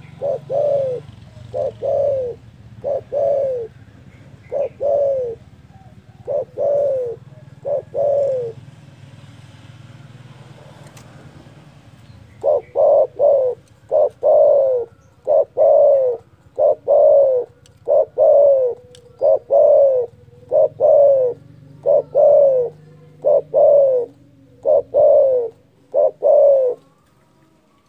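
Spotted dove (derkuku) cooing over and over in low, slightly falling notes grouped in twos and threes. It breaks off for about four seconds in the middle, then carries on in a faster run of coos.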